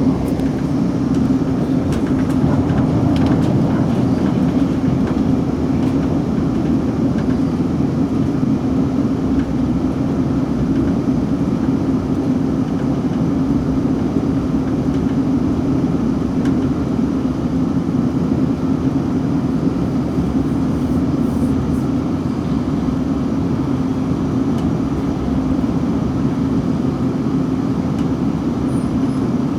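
Steady running noise heard inside a Class 458 electric multiple unit travelling at speed: a continuous rumble of wheels on rails with a constant low hum, unchanging in level.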